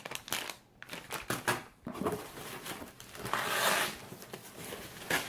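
Packaging being handled and unwrapped: a run of light rustles and clicks, with a longer crinkle about three and a half seconds in.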